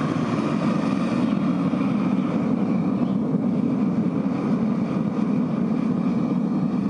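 Propane burner roaring steadily as it fires a homemade metal-casting furnace.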